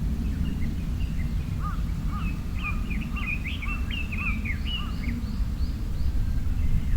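Songbird singing a quick, chattering run of repeated chirps for about four seconds, over a steady low rumble of outdoor background noise.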